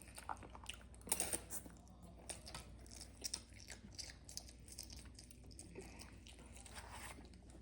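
People eating: faint chewing, biting and small crunches, with scattered mouth and food clicks.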